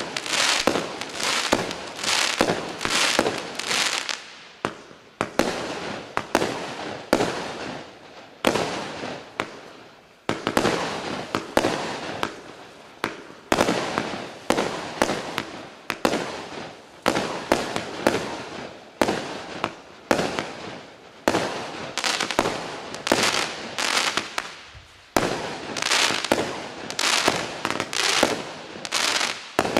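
Klasek 'Fireworks Show 192' multi-shot fireworks cake firing a rapid volley of shots, a few a second, each launch and burst followed by crackling. The volley dies away near the end.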